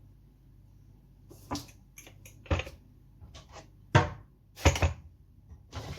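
Kitchen containers and spoons being handled while spices are added to a syrup: a string of sharp clicks and knocks, the loudest two about four and four and a half seconds in, then a rustling shuffle near the end.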